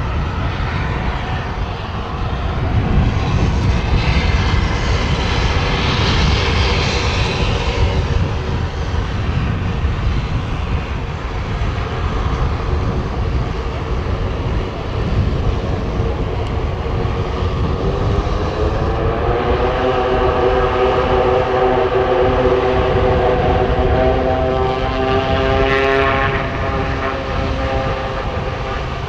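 Twin Garrett TPE331 turboprops of a Fairchild Swearingen Metroliner running on the runway, steady and loud. The engine tone rises in pitch about two-thirds of the way through and again near the end as power comes up for the take-off roll.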